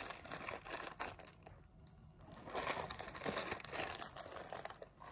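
Clear plastic packaging crinkling and rustling as small wrapped items are handled and unwrapped, in two stretches with a short lull about a second and a half in.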